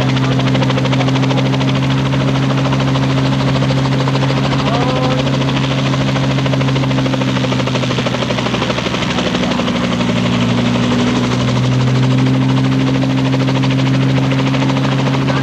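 Robinson helicopter's engine and rotors running steadily at a constant pitch, with a fast, even beat from the blades.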